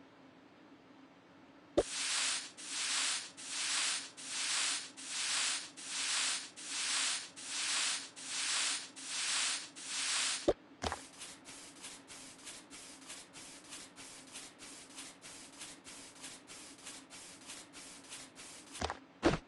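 Rhythmic hissing, rubbing strokes. After a click comes a dozen even strokes a little over one a second. After a second click comes a faster run of lighter strokes, about three a second. It ends with a couple of clicks.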